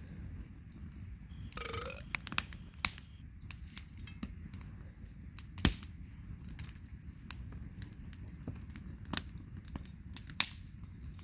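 Wood campfire burning and crackling, with sharp pops at irregular intervals over a low rumble; the loudest pop comes about five and a half seconds in.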